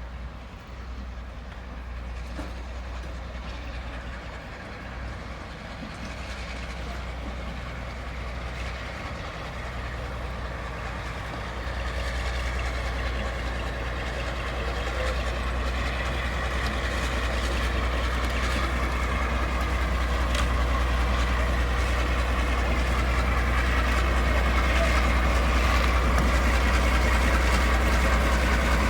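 A Class 52 'Western' diesel-hydraulic locomotive running into a station. Its heavy engine hum grows steadily louder as it approaches, and faint tones slowly fall in pitch in the second half.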